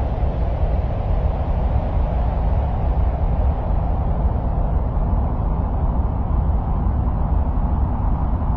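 Steady low rumbling noise, strongest in the deep bass, with no distinct events: an ambient 'sound of Mars' noise track.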